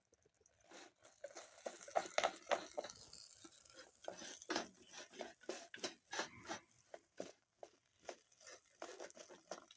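A hand mixing and squeezing food in a metal bowl, giving a quiet, irregular run of crackling and crunching sounds that starts about a second in.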